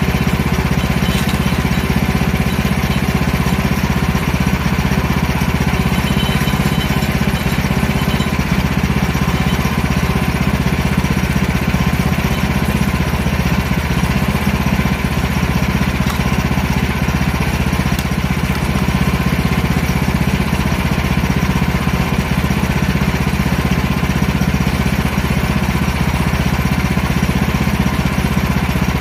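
Small gasoline engine idling steadily, most likely the portable band sawmill's engine left running while the log is turned, with no change in speed or load.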